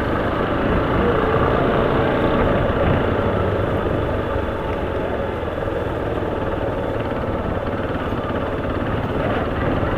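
Motorcycle engine running steadily while riding through town streets, with road and wind noise.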